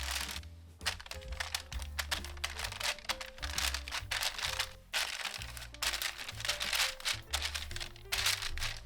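Background music with a steady bass line, over a run of irregular crinkling and crackling noises from handling in food preparation, stopping briefly a few times.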